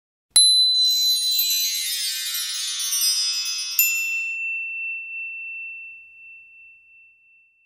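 Sound logo of bright, shimmering chimes: a sharp chime strike opens a cascade of high ringing tones, a second bright ping comes about halfway through, and a single high tone is left ringing and fading out.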